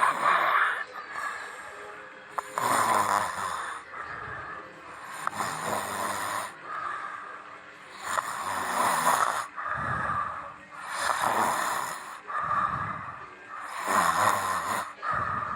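A person snoring, one noisy snore about every two seconds, each swelling and dying away.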